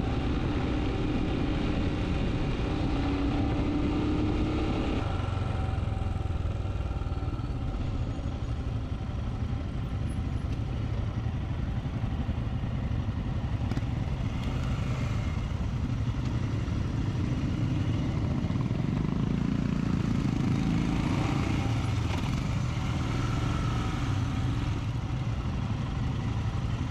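Royal Enfield Scram 411's single-cylinder engine running through a pretty polite stock exhaust while riding, over steady wind and road noise, with other motorcycles riding close ahead. The engine note changes about five seconds in.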